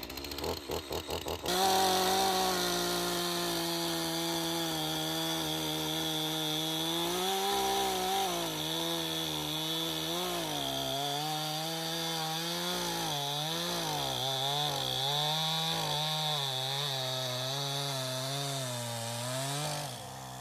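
Two-stroke chainsaw catching about a second and a half in after a brief sputter, then running at high revs with its pitch repeatedly dipping and recovering as it works through a log under load. Near the end it drops off sharply.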